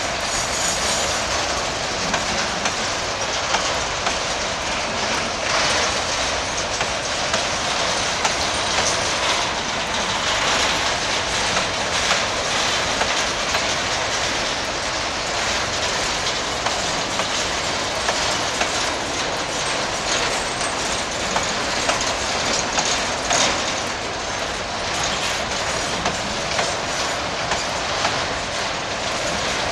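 Freight train wagons rolling past close by, their wheels clicking over the rail joints in a steady clickety-clack with frequent sharp clicks.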